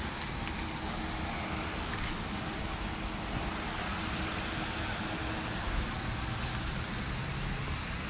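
Steady, even rushing outdoor noise with no distinct events in it.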